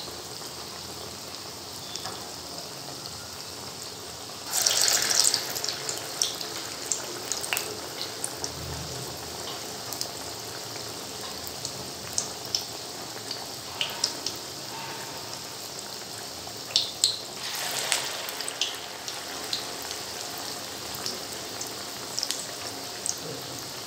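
Onion dal vadas deep-frying in oil over a high flame: a steady sizzle with scattered small crackles and pops. The sizzle swells louder about four to five seconds in and again around seventeen seconds, as fresh vada batter is slipped into the hot oil.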